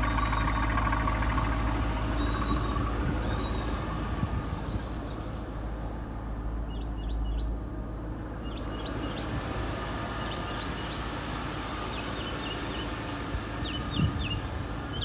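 A steady low vehicle rumble, with small birds chirping in short clusters of quick high notes from about six seconds in.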